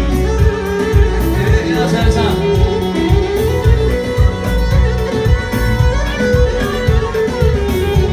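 Live wedding band playing an instrumental passage: a fiddle-like melody over guitar and a steady drum beat.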